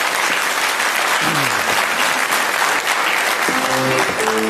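Studio audience applauding steadily. A band starts playing music about three and a half seconds in.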